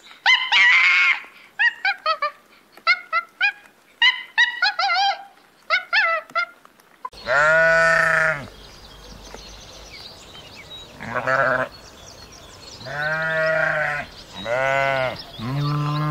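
Sheep bleating: five long, drawn-out bleats in the second half, each about a second long. Before them comes a run of short, high, squeaky chirping calls from monkeys.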